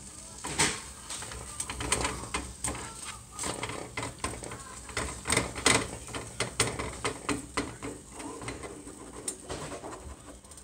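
Plastic spatula scraping and tapping against a nonstick frying pan in quick, irregular strokes, chopping up eggs as they fry.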